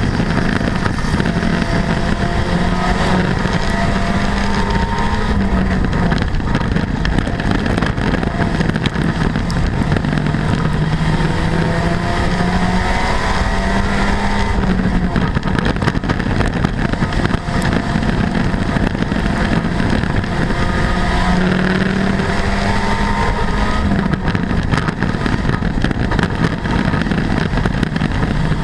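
Front-wheel-drive dirt-track race car's engine heard from inside the cockpit, revving up and easing off in a cycle that repeats about every ten seconds as it laps, over constant rattle and noise from the car on the dirt.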